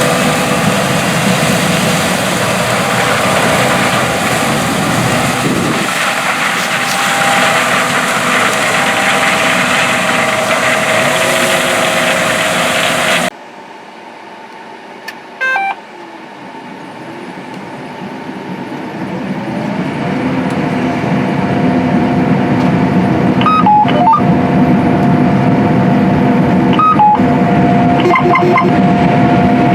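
John Deere S670 combine harvesting corn: loud, steady engine and threshing noise with a steady whine. About halfway through it cuts abruptly to a quieter passage, where a machine's engine rises in pitch and grows louder, then runs steady. Several short electronic beeps come near the end.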